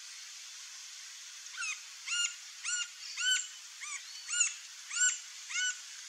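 Green-barred woodpecker calling: a series of about eight short, rising-and-falling notes, roughly two a second, starting about a second and a half in, over a steady background hiss.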